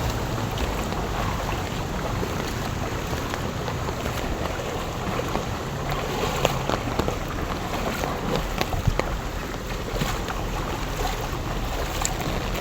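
Heavy rain over floodwater: a steady rushing wash with scattered sharp ticks of drops.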